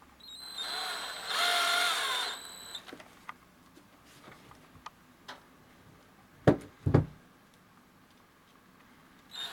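Cordless drill-driver running for about two seconds as it screws a metal stud into the rubber sole of a hoof boot, its motor whine stepping up in pitch and loudness partway through. Two loud thumps follow a few seconds later, and a brief burst of the drill comes right at the end.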